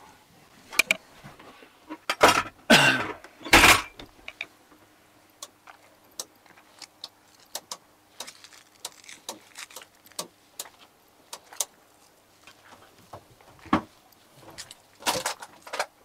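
Someone rummaging through a caravan's cupboards: objects clattering, knocking and jingling against each other, in loud bunches about two to four seconds in and again near the end, with scattered clicks between.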